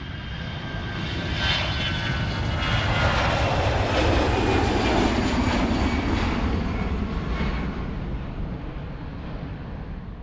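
Airplane taking off and passing, its engine noise swelling to a peak about four seconds in and then fading away.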